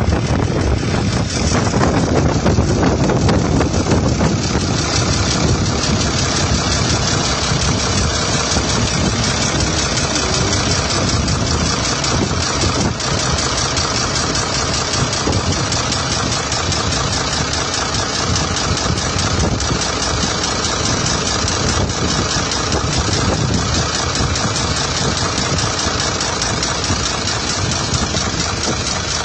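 A motor vehicle's engine running steadily, loud and unbroken.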